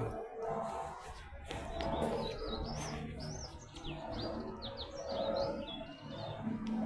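Small birds chirping: a quick run of short, high chirps, each sweeping up and down, over a low steady background.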